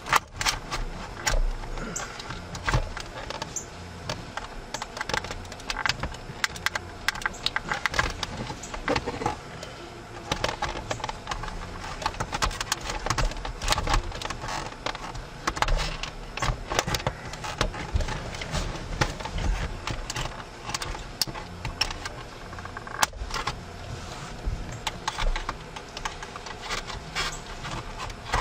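Irregular clicks, taps and rattles of hard plastic as a trim stick pries the plastic trim cover off a Chevy Silverado center console lid, working it loose from its retaining clips.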